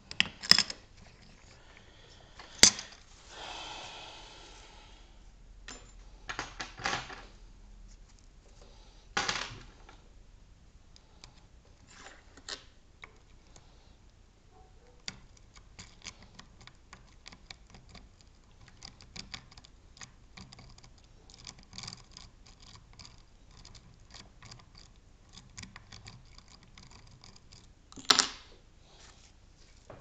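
Lock-picking tools clicking and scraping in the keyway of a brass Mila Evolution euro cylinder lock clamped in a vise. A few sharp, louder metallic clicks stand out near the start, at about three and nine seconds, and near the end. In between come a brief scrape and many faint quick ticks.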